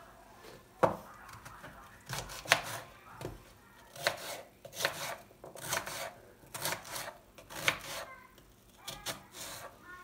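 Kitchen knife slicing an onion on a plastic cutting board: a steady run of crisp cuts, roughly one a second, each ending in a tap of the blade on the board.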